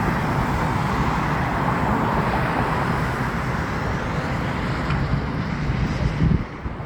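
Steady road traffic noise, with a brief thump near the end.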